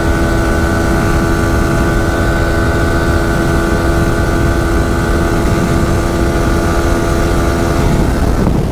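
Yamaha R15 V4's 155 cc single-cylinder engine held at high revs at about 140 km/h, flat out near its top speed, giving a steady high engine note over heavy wind rumble. The note eases off slightly near the end.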